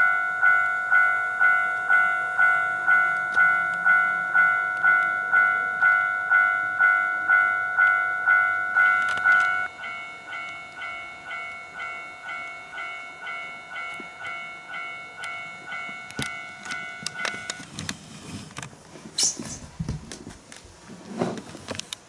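Toy Japanese level-crossing alarm ringing its repeated electronic ding, about two strikes a second; it drops in loudness about ten seconds in and stops about seventeen seconds in. Clicking and rattling of the HO-scale model train running on the track follow, with a brief rising and falling whine near the end.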